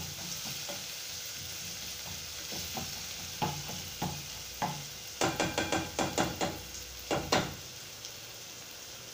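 Chopped onions, green chillies and curry leaves sizzling steadily as they fry in oil in a nonstick pot. Through the middle a slotted spatula stirs and scrapes against the pot in a quick run of strokes, then stops, leaving only the sizzle.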